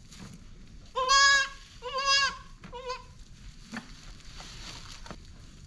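Newborn goat kid bleating three times, high-pitched, the third call short.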